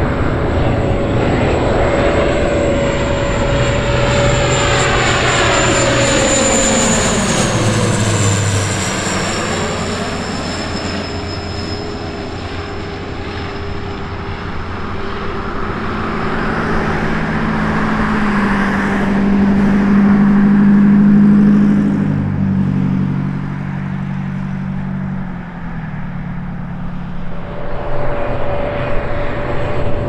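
Bombardier Dash 8-400AT airtanker's twin Pratt & Whitney PW150A turboprops in a low flyby. A loud propeller whine drops in pitch as the aircraft passes, about seven to nine seconds in, then settles into a steady, deeper propeller drone as it flies away. Near the end the higher whine returns as the aircraft approaches again.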